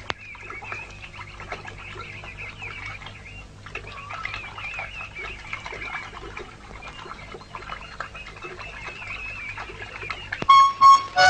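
Many birds chirping over a low steady hum. Near the end, music comes in with a few loud held notes.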